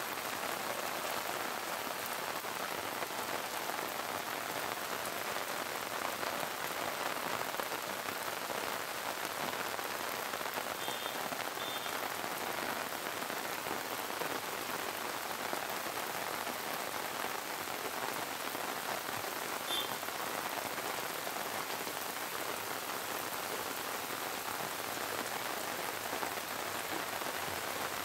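Steady rain falling on a flooded, muddy lane: an even, unbroken hiss of rain on ground and running water, with no let-up.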